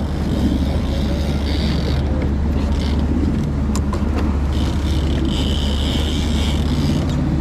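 Twin outboard motors running steadily under way, a deep even hum with the hiss of wind and water rushing past the hull.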